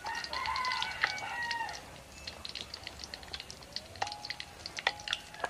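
A rooster crowing once, a long call of nearly two seconds, followed by two short calls about four and five seconds in. Light crackling of oil frying runs underneath.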